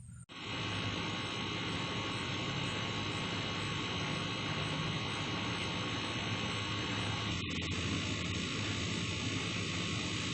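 Steady rushing noise with a low hum and faint steady tones, briefly cutting out for an instant about seven seconds in.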